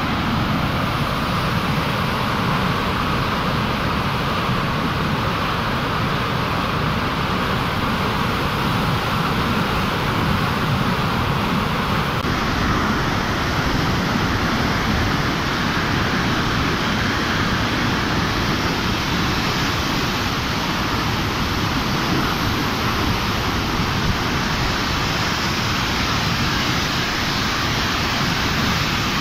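Floodwater rushing through the gates of a river barrage: a steady, unbroken rush of churning white water. The sound changes slightly in colour about twelve seconds in.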